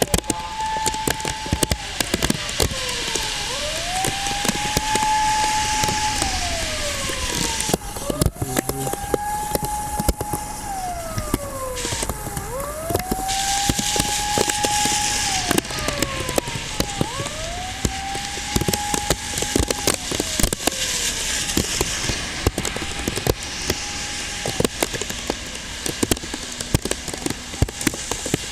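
A wailing siren, rising, holding and falling in a slow cycle about every four seconds and growing fainter near the end, with a second fainter wail offset against it. Underneath runs a steady rushing storm noise full of crackles.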